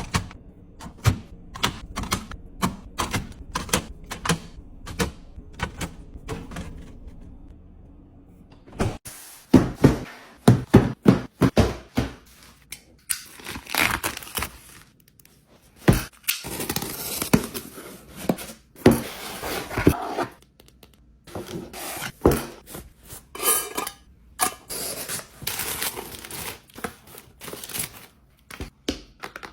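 Hands handling objects at close range: a run of light clicks and taps, then from about nine seconds in louder knocks and thuds mixed with stretches of rustling and scraping noise.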